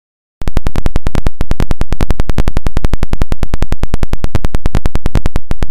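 A loud rapid buzz of evenly spaced crackles, about ten a second, starting about half a second in: the 'bhar bhar' noise that a faulty set of wired earphones with a Lightning adapter puts into a phone recording.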